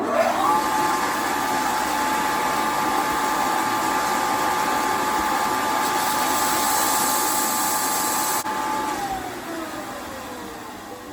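A handheld electric power tool's motor switches on and spins up quickly to a steady high whine with a rushing hiss. It runs for about eight seconds, then is switched off and winds down with a falling whine.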